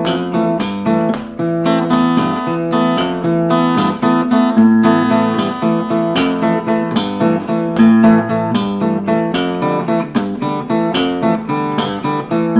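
Faith acoustic guitar fingerpicked: flowing arpeggios of single notes over bass notes, with the picking pattern varied as it goes.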